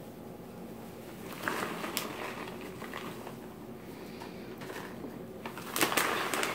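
Plastic bag of shredded cheese crinkling and rustling as handfuls of cheese are pulled out and sprinkled, with a few sharp clicks. It starts about a second and a half in and is loudest near the end.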